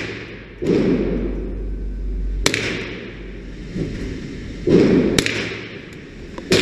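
Two sharp small-calibre gunshot cracks about two and a half seconds apart, and a third right at the end, from .22 rifle or pistol fire on a shooting range.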